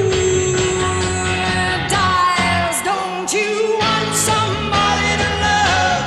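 1960s psychedelic rock song with a female lead vocal over electric guitar, bass and drums. The singer holds one long note, then sings shorter phrases.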